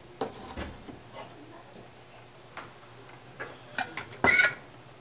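Steel blacksmith tongs clicking and clinking against a blade and the metal door of an electric heat-treat oven, with a louder metallic clatter about four seconds in. A low steady hum runs underneath.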